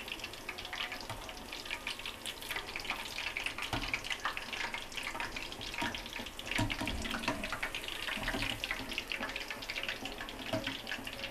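Chapli kababs deep-frying in hot oil: a steady, dense crackling and bubbling, with a few low knocks from a perforated metal spoon as the kababs are turned in the pan.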